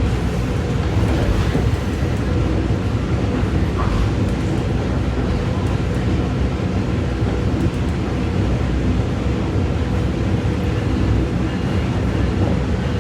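SMART diesel multiple-unit commuter train running steadily along the line, heard from on board: a continuous rumble of engine and wheels on rail.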